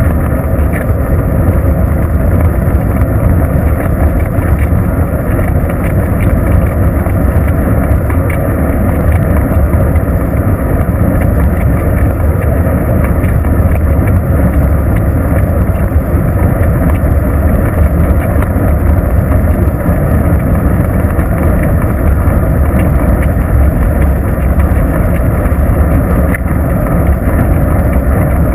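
Wind buffeting the microphone of a bicycle-mounted GoPro camera while riding, a steady loud low rumble that sounds muffled, with little treble.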